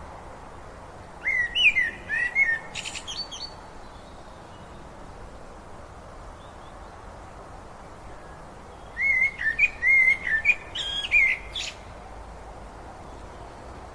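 A songbird sings two quick warbling phrases, each about two and a half seconds long and some seven seconds apart, over the steady rush of flowing river water.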